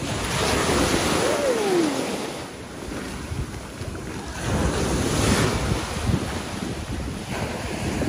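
Small waves washing up onto a sandy beach, surging twice, with wind buffeting the microphone.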